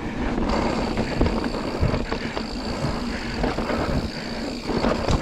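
Mountain bike riding fast down a dirt singletrack: a steady rumble of tyres on dirt and the bike rattling over bumps, with several sharp knocks, the loudest near the end.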